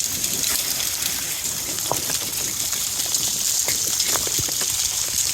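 Steady rain and running storm water after a hailstorm: an even hiss with scattered drips and ticks throughout.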